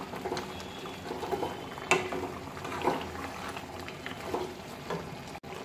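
Beef kosha bubbling in a metal pan in its own released juices, without added water, while a wooden spatula stirs it. A few short sharp knocks and pops stand out at uneven intervals.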